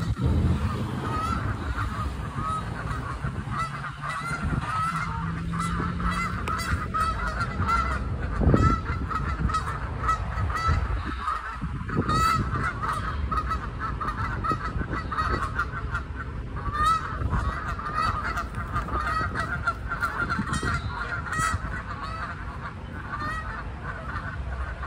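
A flock of Canada geese honking loudly and continuously, many short calls overlapping one another. A low rumble runs underneath, and there is a single thump about eight and a half seconds in.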